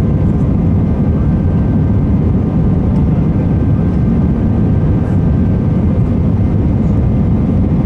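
Cabin noise of an Airbus A319-111 airliner in flight: a steady, loud, deep noise of its jet engines and the air rushing past the fuselage, with a few faint steady whining tones above it.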